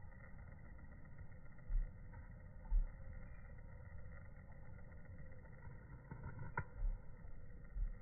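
Low, steady background rumble with a few dull, very low thumps and one sharp click about six and a half seconds in.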